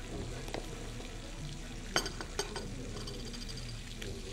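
Steady background hiss of a quiet restaurant room, with two light clicks about two seconds in, half a second apart.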